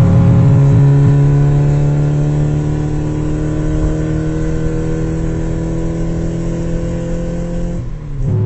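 Car engine running at high, steady revs, its pitch sagging slowly, then dropping quickly near the end.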